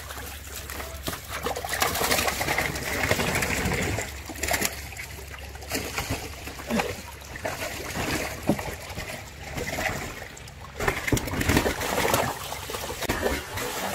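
Muddy stream water splashing and sloshing as a person wades chest-deep and thrashes a hand landing net through it. The splashes come in irregular bursts and are heaviest near the end.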